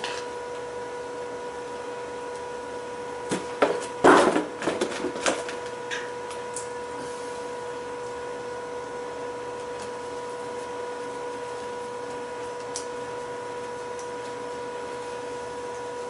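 Metal hand tools clinking and knocking against a furnace blower motor as it is taken apart, a quick cluster of clicks and knocks about four seconds in, then a few scattered ticks. A steady hum of even tones runs underneath.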